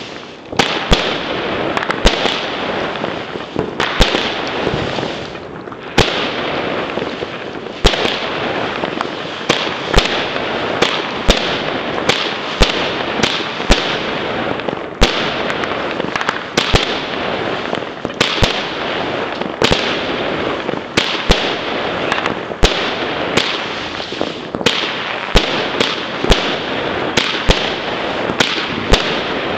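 Weco Big Crackles firework going off: dense, continuous crackling, with louder sharp bangs standing out about once a second.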